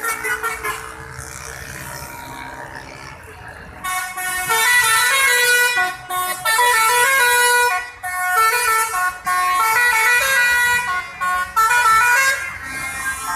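Musical 'telolet' air horn on a passing convoy vehicle playing a tune in quick stepped notes, starting about four seconds in and broken into phrases by short pauses. Before it, quieter passing traffic.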